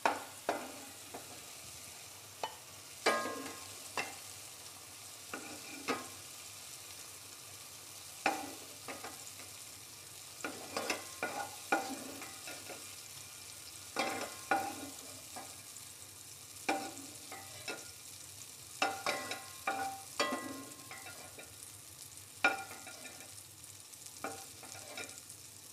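A wooden spatula scraping and knocking against a nonstick pot as fried apple cubes are scooped out into a bowl. The sharp knocks and taps are irregular, about every one to two seconds, some ringing briefly. A faint sizzle of ghee runs under them.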